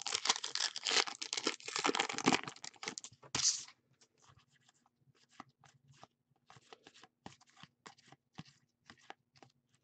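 A foil trading-card pack being torn open and crinkled for about two and a half seconds, with one more crinkle about three and a half seconds in. After that, faint scattered clicks of cards being slid and flicked through by hand.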